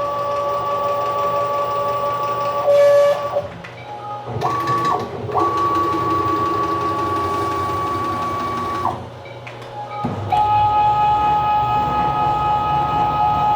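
Stepper motor on a CNC-converted PM-727M mill driving the Z-axis down, a steady whine. It runs for about three and a half seconds, stops, runs again briefly and then for about three and a half more seconds, and resumes at a lower pitch from about ten seconds in.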